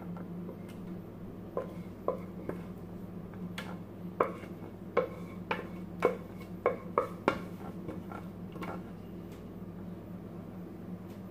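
A spoon clinking and scraping against a metal pot as thick béchamel white sauce is scooped out and poured over the dish. There are about ten sharp clinks between roughly two and nine seconds in.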